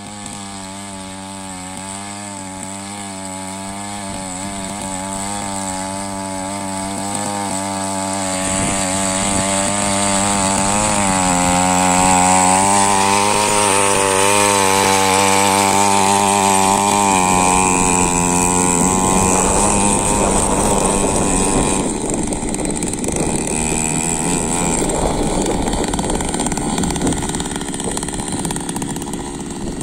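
Small petrol engine of a walk-behind power weeder running under load as its tines churn the soil, its pitch wavering as the load changes. It grows louder over the first dozen seconds, then after about eighteen seconds the steady tone gives way to a rougher, noisier sound.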